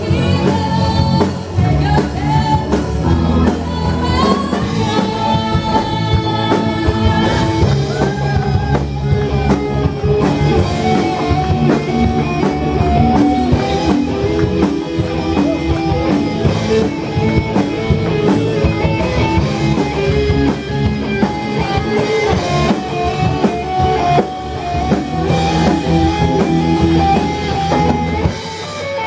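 Amateur rock band playing live: a woman singing into a microphone over electric guitar, bass guitar, drum kit and keyboard with a steady beat. The bass and kick drum drop out about a second before the end.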